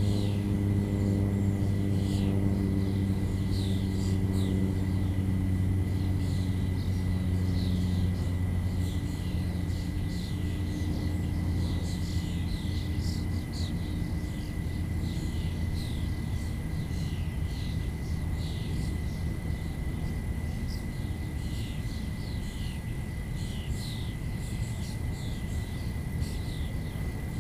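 A low motor drone fades away over the first half. Busy high chirping and a thin steady high whine continue throughout.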